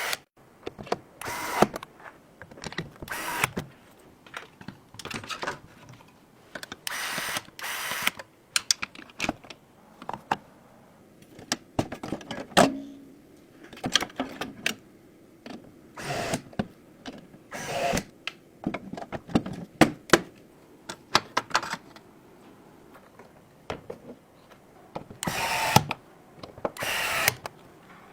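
Irregular clicks, knocks and short scraping or whirring bursts of computer parts being handled and fitted together during a PC assembly.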